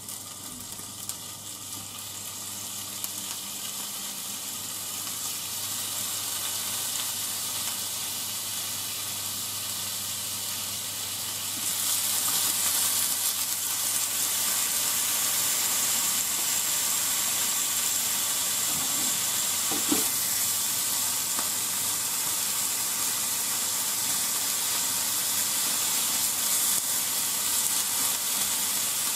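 Thin slices of pork sizzling in a hot non-stick frying pan as more slices are laid in. The sizzle grows louder over the first ten seconds or so and steps up about twelve seconds in, with a small knock of the chopsticks or pan later on.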